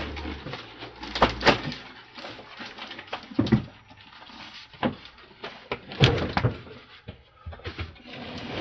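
Irregular knocks, clunks and clicks of a refrigerator door and its fittings being handled during installation. The loudest come a little after one second and about six seconds in.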